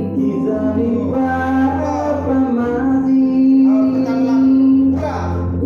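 A person singing over musical accompaniment, holding one long note through the middle of the passage.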